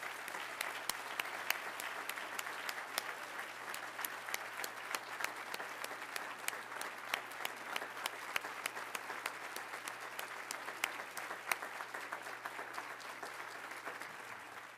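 Audience applauding, many hands clapping in a steady dense clatter that dies away near the end.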